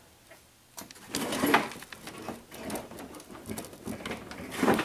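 Plastic push-in bumper clips being pried out and handled with a screwdriver and pliers: irregular small clicks, scrapes and plastic creaks, starting about a second in, with a louder clatter near the end.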